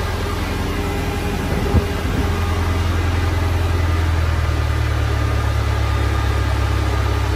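Turbocharged Subaru STI flat-four engine idling steadily on the dyno, with one short knock just under two seconds in, after which it runs a little louder.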